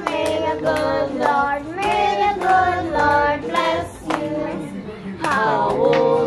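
A group of voices, children and women among them, singing together, with rhythmic hand clapping along.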